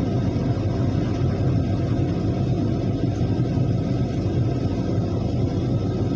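Heavy construction machinery's diesel engine running steadily, a constant low rumble.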